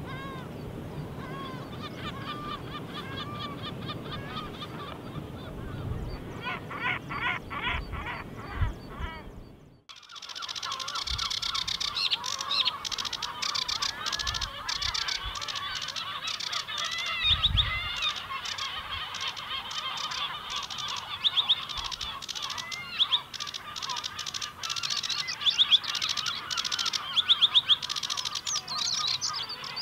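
Seabird colony calling: repeated pitched cries over a low wind rumble, with a quick run of calls shortly before a sudden cut about a third of the way in. After the cut comes a denser, busier chorus of overlapping calls and sharp clicks.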